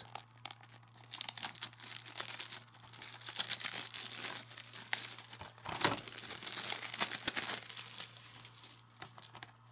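Clear plastic shrink wrap being torn open and peeled off a DVD case: crinkling and crackling with many small clicks, dying away about eight seconds in.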